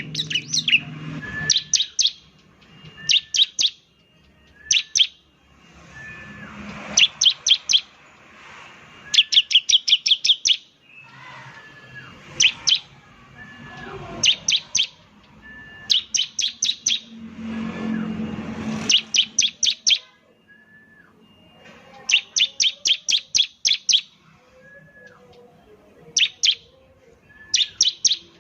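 Bar-winged prinia (ciblek) calling in the rapid 'nembak' style: repeated bursts of two to eight sharp, high chips, one burst every second or two. A short, lower whistled note sounds between some of the bursts.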